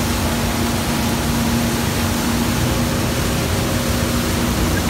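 Towboat's engine running at a steady drone under a continuous rush of churning wake water and wind.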